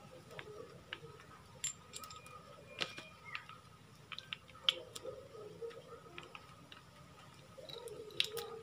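Light, scattered metallic clicks and taps of small internal parts of a car AC compressor being handled and taken out one at a time.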